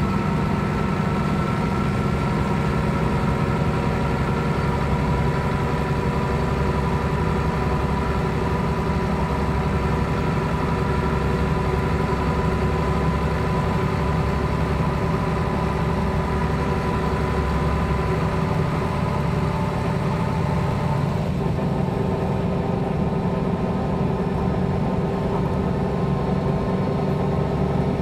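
Mercedes-Benz O 405 G articulated bus's straight-six diesel engine idling steadily while the bus stands, with a slight change in its note about three-quarters of the way through.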